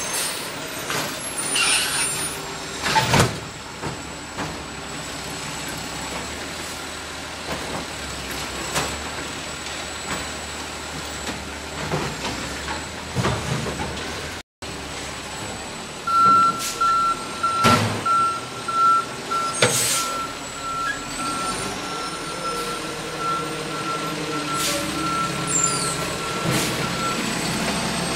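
Automated side-loader garbage truck running, with several sharp clanks and bangs from its lifting arm and the cart it handles. In the second half a backup alarm beeps steadily for about ten seconds.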